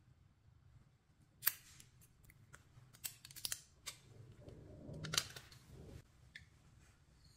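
Thin clear plastic film crackling and crinkling in the fingers as it is peeled off a stick of packed pink sand. A sharp crackle comes about one and a half seconds in, a cluster of them around three to four seconds, and the loudest about five seconds in, with softer rustling around it.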